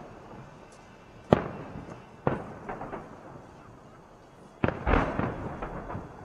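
Fireworks shells bursting in the sky: a sharp boom about a second in, another about two seconds in with a few smaller pops, then a louder cluster of bursts near the end, each trailing off in an echoing crackle.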